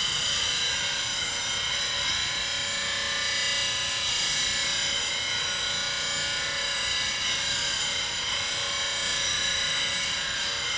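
Bench grinder with an 80-grit CBN wheel running while a high-speed-steel bowl gouge is ground freehand against it: a steady whine with a grinding hiss, as metal is taken off the sides of the gouge to shape a swept-back grind.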